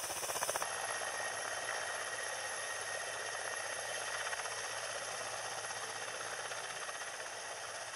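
Military helicopters' turbines and rotors running. It begins with a Ka-52's rapid rotor beat, then under a second in changes abruptly to a steady turbine whine with rotor noise from Mi-8 helicopters, one lifting off in blown snow.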